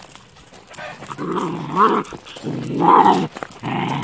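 Malaklı–Kangal cross puppies growling as they play-fight, three growls in a row starting about a second in.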